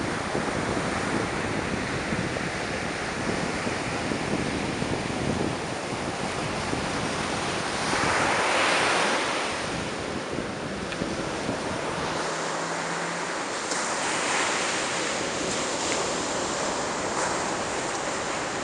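Ocean surf breaking and washing up a sandy beach, a continuous hiss with a louder surge of breaking wave about eight seconds in and a smaller one near fourteen seconds. Wind buffets the microphone, a low rumble mainly in the first half.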